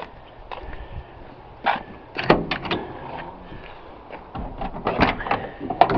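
Clunks and clicks of a Chevy conversion van's door being opened and handled, a knock about two seconds in and a run of knocks and latch clicks near the end.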